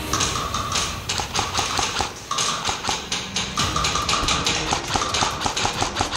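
Airsoft electric guns firing in long full-auto bursts: a fast run of about ten clicks a second over a steady motor whine, with a short break about two seconds in.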